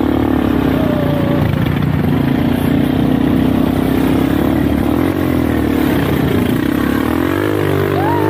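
ATV (quad bike) engine running under way. The engine note is steady, then wavers and rises in pitch about seven seconds in as the engine speeds up.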